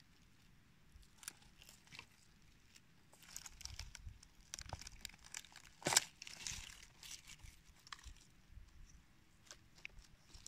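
Dry leaf litter and twigs crackling and rustling as a hand works a porcino mushroom loose from the forest floor, with one louder crack about six seconds in.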